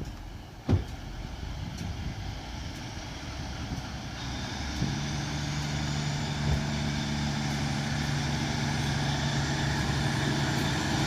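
A diesel multiple unit's underfloor engine running at the platform, growing steadily louder, with a steady engine note settling in about five seconds in. A single sharp knock about a second in is the loudest sound.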